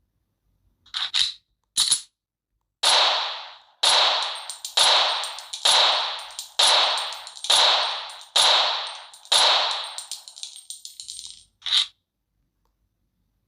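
A Makarov pistol fired eight times at about one shot a second, each shot trailing off in a short ringing echo. A few short clicks come before the string of shots, and there is a softer patter and a single click after it.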